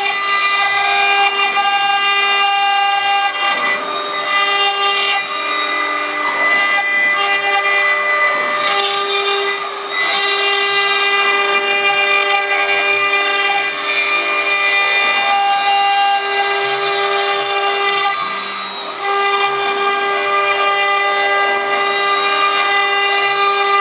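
CNC router's spindle running steadily with a high whine while the bit cuts stone, briefly dipping in level twice.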